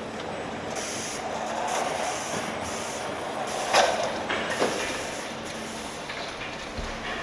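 Car assembly plant machinery running with a steady hum, repeated hisses of compressed air, and two sharp knocks a little after the middle.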